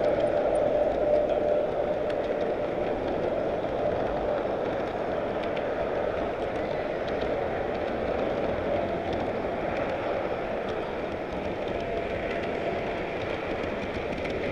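Large-scale model train running along its track, heard from a car of the train itself: a steady rolling rattle of wheels on rail with a steady whine, strongest in the first couple of seconds.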